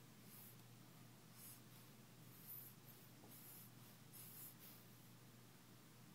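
Faint snoring of a congested baby: soft, hissing breaths through a blocked nose, about one a second.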